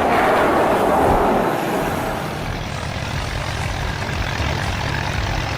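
A heavy vehicle's engine running steadily under a loud rushing noise, which eases off after about two seconds.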